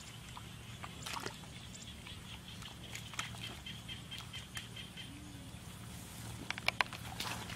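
Hands groping and squelching in shallow mud and water, with a few sharp wet splashes near the end, over a steady high-pitched chirring in the background.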